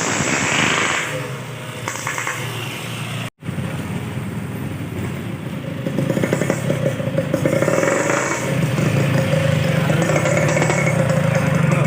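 Yamaha RX King's single-cylinder two-stroke engine running through its exhaust, with a brief gap where the sound cuts out about a third of the way in.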